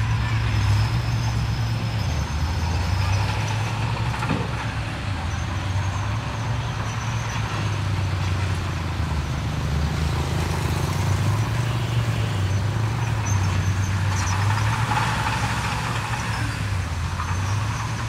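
Diesel engine of heavy earthmoving machinery running steadily, with its low hum shifting slightly in pitch.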